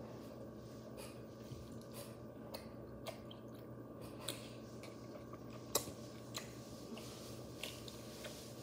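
A person chewing close to a phone's microphone: soft irregular clicks and smacks, one sharper click about six seconds in, over a steady low hum.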